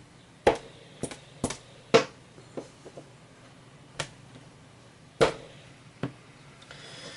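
Handling sounds as a brass fidget spinner is set spinning and a timer is started: a series of about seven sharp clicks and taps at uneven intervals, the loudest about half a second, two seconds and five seconds in.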